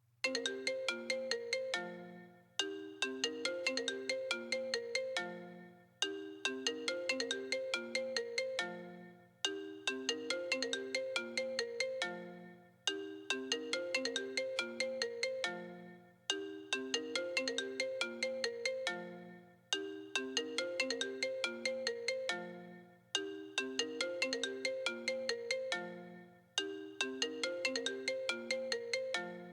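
iPhone ringtone ringing: a short plucked melody that ends on a low note and repeats about every three and a half seconds.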